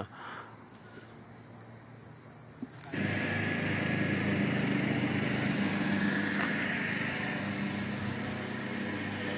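Crickets chirping faintly, then, about three seconds in, an abrupt switch to a louder steady machine drone: a motor running with a hiss and a low hum.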